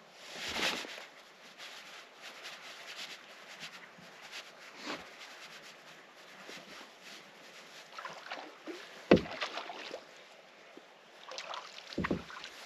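Rod-and-reel fishing noises on a bass boat's front deck: a whoosh about half a second in, then faint clicks and rubbing from working the rod and reel. A sharp knock about nine seconds in is the loudest sound, and a cluster of knocks and rustling comes near the end while a hooked fish is fought.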